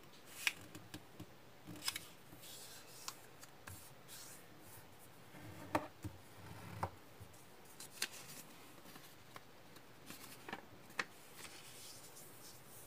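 Square origami paper being folded and creased by hand: irregular crisp crinkles and clicks as folds are pressed flat, with brief soft rustling as the sheet is handled and turned over.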